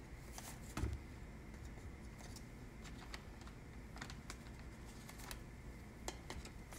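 Faint, scattered light clicks and taps of a metal spoon scooping cornstarch from a canister and tipping it into a plastic zip-top bag, with one dull thump a little under a second in.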